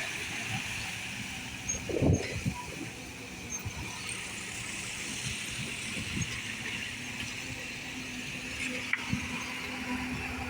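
Road traffic: vehicles running past with a steady rumble and hiss, a louder knock about two seconds in, and a steady engine hum coming in around the middle.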